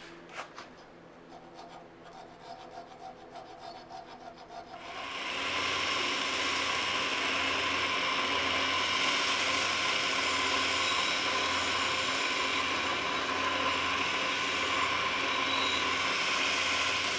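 Steel file rasping in strokes across a small Damascus steel piece held in a vise. About five seconds in, this gives way to a belt-driven electric grinder running steadily and loudly, with the Damascus piece held against its spinning wheel.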